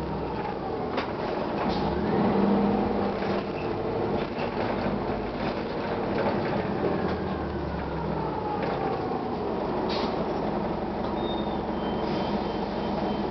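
1999 Gillig Phantom transit bus running, its Detroit Diesel Series 50 engine droning steadily, with scattered rattles and clicks and a whine that slowly falls in pitch.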